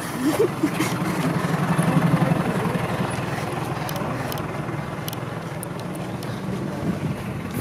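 Tour bus engine idling with a steady low hum, loudest about two seconds in and fading after that.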